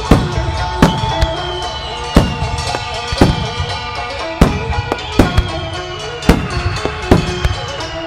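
Aerial firework shells bursting in quick succession, about one sharp boom a second, each with a rolling echo. Music plays underneath.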